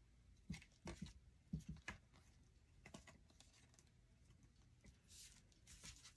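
Faint handling of hockey trading cards: soft ticks as cards are slid off a stack and laid on a table, then a brief swish of a card a little after five seconds.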